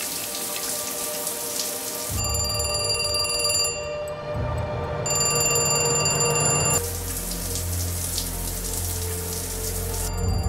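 A soft fizzing hiss, then a bright electronic ringing tone in two bursts of about a second and a half each, with a third starting near the end, over a low droning film score.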